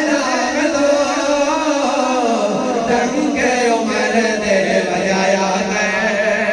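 Several men singing a Punjabi devotional kalam (religious poem) together, in long held notes that rise and fall.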